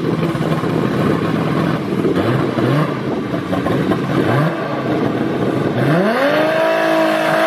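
Turbocharged Toyota Supra drag car's 2JZ-GTE engine idling roughly on the start line with a few short throttle blips. About six seconds in it revs up quickly and holds steady at high revs.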